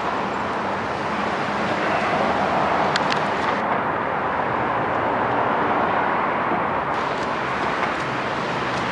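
Steady noise of road traffic running along the street.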